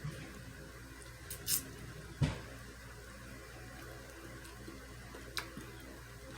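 Eating sounds: a few short, sharp wet clicks of chewing and lip smacking, with one louder knock a little over two seconds in, over a low steady hum.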